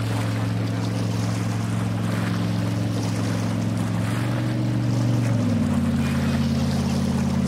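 Motorboat engine running steadily at speed, with rushing wind and water noise; its pitch drops slightly about five seconds in as the throttle eases.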